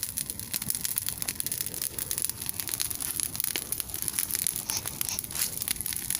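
A freshly lit bonfire of dry brush crackling as it catches, with a dense, irregular stream of sharp snaps and pops.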